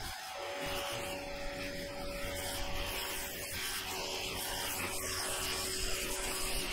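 Water jet from a Ryobi RY141612 1600 psi electric pressure washer's turbo nozzle spraying steadily onto moss-covered asphalt roof shingles, a continuous hiss with a thin steady tone underneath.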